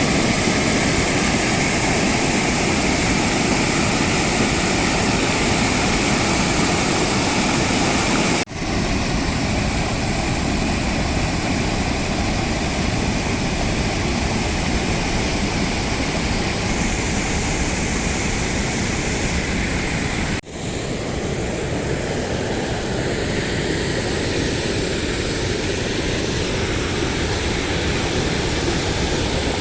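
Waterfall rushing: a steady, loud roar of falling water that drops out briefly twice, about 8 and 20 seconds in.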